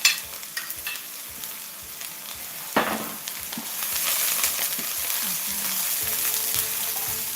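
Chopped garlic sizzling in hot oil in a pan as it is stirred, with a sharp knock about three seconds in, after which the sizzle grows louder.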